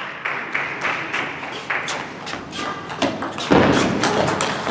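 Table tennis rally: a quick run of sharp clicks as the ball is struck by the paddles and bounces on the table, about two to three a second, with a louder, fuller sound lasting about half a second around three and a half seconds in.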